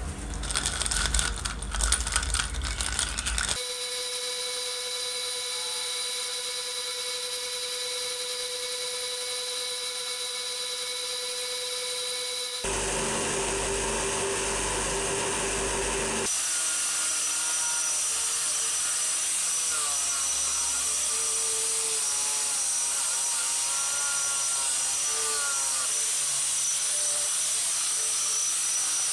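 Small metal parts clink in a plastic cup of solvent for the first few seconds. After that a power tool motor runs steadily for the rest. For roughly the last half this is an angle grinder with a wire cup brush scrubbing the old metal saw's base, with a steady high whine and a grinding scrub that wavers.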